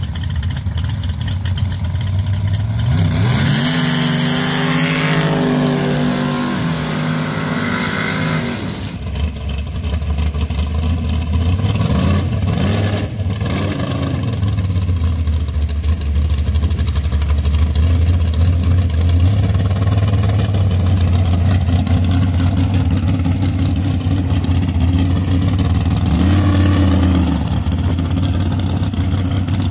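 Sand drag dragster V8 engines. One revs up hard with a rising note and holds at high revs for about five seconds before cutting off. After that a dragster engine idles with a steady low rumble and is blipped once near the end.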